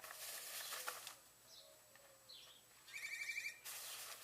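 Faint songbirds chirping, with a fast, even trill about three seconds in. Short bursts of rustling noise in the first second and again near the end.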